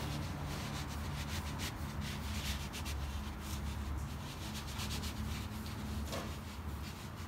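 Hands rubbing and pressing four-way stretch carpet onto a glue-sprayed van side panel: a steady scuffing of fabric with many faint scratchy strokes, over a low steady hum.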